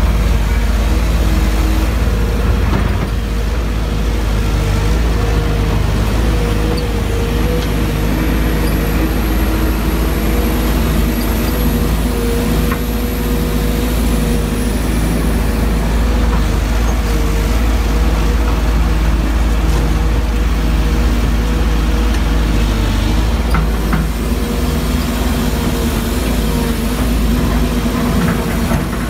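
Sumitomo SH210 hydraulic excavator's diesel engine running steadily while the machine works, a deep hum with a faint high whine above it for part of the time.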